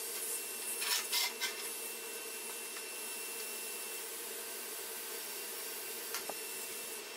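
Electric arc welding on stainless steel: a steady hiss of the arc, with a few louder crackles about a second in and again near the end.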